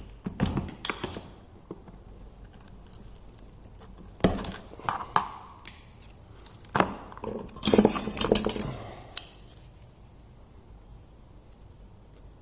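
Scattered knocks and clinks as the leftover block is broken away by hand from a freshly cast solder barrel end on a bike brake cable, with a busy cluster of clicks and scrapes about eight seconds in.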